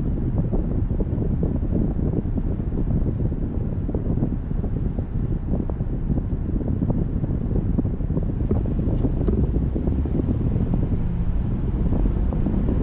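Steady low rumble of road and wind noise from a car being driven, with a few faint ticks a little past the middle.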